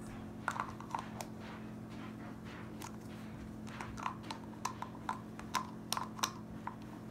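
Scattered light clicks and taps at an uneven pace, a few early and more in the second half, over a faint steady hum.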